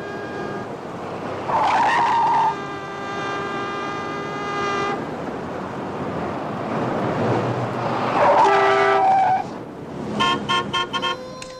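City street traffic with car horns honking: one long held horn from about two seconds in to about five seconds, and another honk around eight to nine seconds. Near the end a run of short, choppy beeping tones starts.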